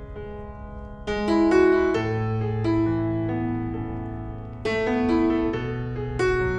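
Background music: a slow piano piece of held chords over low bass notes, with a new chord struck about a second in, again past halfway and once more near the end.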